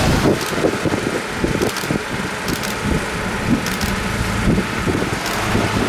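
A police escort motorcycle passes close at the start, followed by the steady hum of vehicle engines and road noise.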